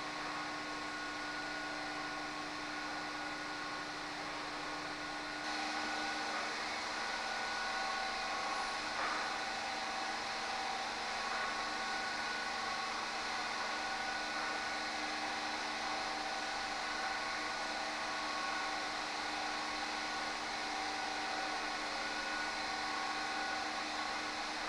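Steady machinery hum of lighthouse equipment: an even noise with several steady tones. The hum changes character and gets a little louder about five seconds in.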